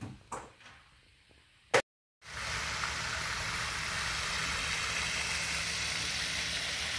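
A sharp click, then after a brief cut a steady rushing hiss from a pond fountain's spray, over a low rumble.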